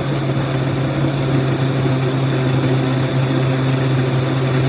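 Countertop blender motor running steadily, a constant hum with a whirring rush above it, puréeing tomato sauce with mushrooms, peppers and onions.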